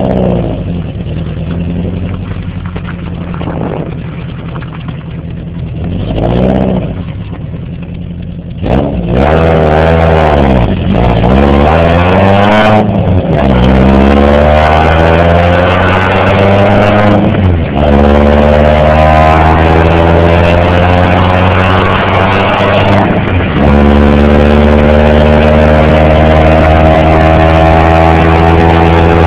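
1998 Chevy Metro's 1.3-litre four-cylinder through a SuperTrapp exhaust, at low revs at first with a brief rev about six seconds in. It then accelerates hard through the gears of its 5-speed, the pitch rising and dropping back at each of four upshifts, and settles into a steady cruise for the last few seconds.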